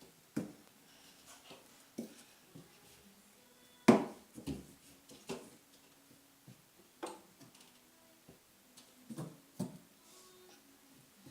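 Scattered knocks and taps from a toddler handling things, with one sharp, louder thump about four seconds in.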